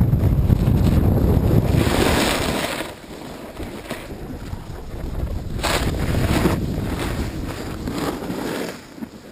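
Wind buffeting the camera microphone while sliding fast down a ski slope, heaviest in the first three seconds. Over it is the hiss of edges scraping across packed snow, louder in two spells, about two seconds in and again around six seconds in.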